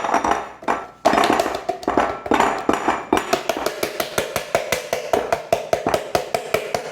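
Kitchen utensil or container knocking against a mixing bowl to empty out the last of the oat flour. A few irregular knocks, then about three seconds in a fast, even tapping at about five taps a second.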